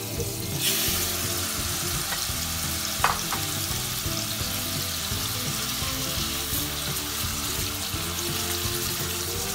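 Raw boneless chicken pieces hitting hot butter and oil in an aluminium pot: the sizzle jumps up about half a second in. It then keeps frying steadily while a silicone spatula stirs the pieces, with one sharp tap about three seconds in.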